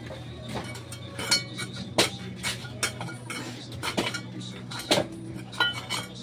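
Metal hand tools clinking and scraping on broken concrete and rubble as a floor is dug out, with sharp irregular strikes every second or so over a steady low hum.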